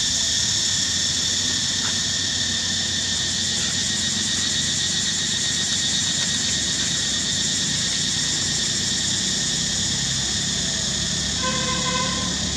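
Steady high-pitched insect drone over a low rumble, and near the end a monkey's short pitched squeak.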